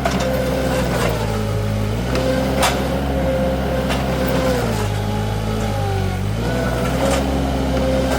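Mini skid steer engine running at high speed, its pitch pulling down twice for a second or two and recovering as the hydraulics take load. A few sharp knocks and clanks.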